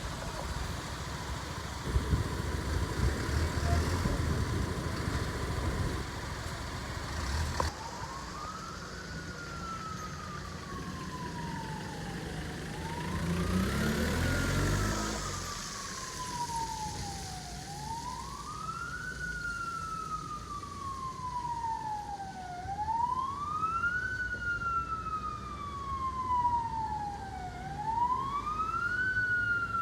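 Fire engine's electronic siren wailing, rising and falling slowly about every five seconds, starting about eight seconds in. Before it starts, a large vehicle engine rumbles, and around the middle an engine revs up.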